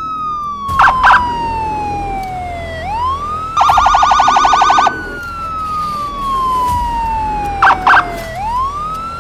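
Police car's electronic siren wailing: the pitch falls slowly over about three seconds, sweeps quickly back up and falls again. About a second in and again near the end it gives two short loud blasts, and in the middle a rapid warble of about twelve pulses a second lasts just over a second.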